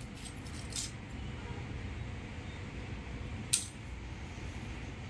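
Clicks of smartphone motherboards being handled and set down: a light click just under a second in and a sharp, louder one about three and a half seconds in, over a steady low background hum.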